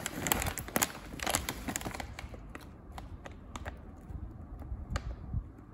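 Plastic snack bag crinkling and crackling as it is handled and turned over in the hand. The crackles come thick for about two seconds, then thin out to scattered clicks.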